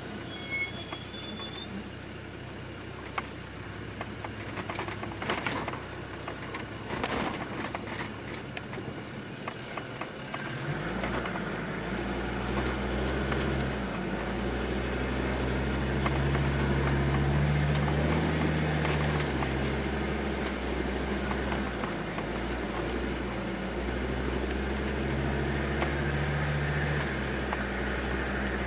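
Land Rover Discovery 2 Td5's five-cylinder turbodiesel engine heard from inside the cabin, crawling over rough ground with occasional clunks for the first ten seconds. It then pulls harder, getting louder, with its revs rising and falling.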